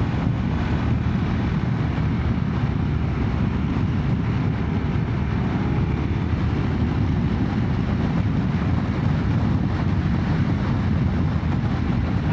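Motorcycle riding at a steady pace, its engine running evenly beneath heavy wind rush on the microphone.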